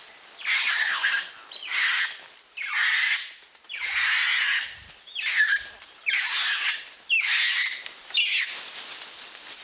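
A rapid series of harsh, rasping animal calls, about one every three-quarters of a second, with faint high whistles above them.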